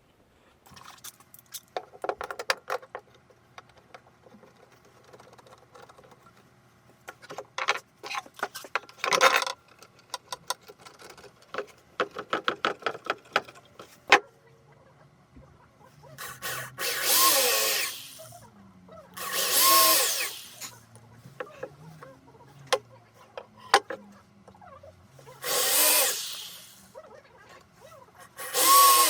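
Power drill running in four short bursts of about a second and a half each in the second half, its pitch shifting within each burst. Before that, a run of clicks and knocks of tools and wood being handled.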